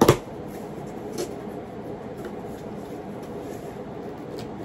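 Cardboard shipping box being pulled open by hand: a loud sharp rip as a sealed flap comes free, then quieter rustling of the cardboard with a softer snap about a second in.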